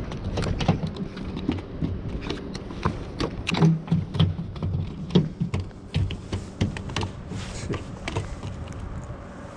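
Footsteps on a floating dock: irregular low thumps mixed with many sharp clicks and knocks.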